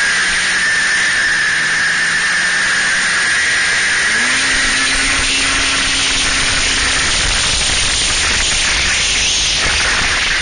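Snowmobile riding at speed, heard from the rider's seat: a steady rush of wind and track noise with a high whine, and the engine note rising about four seconds in and holding.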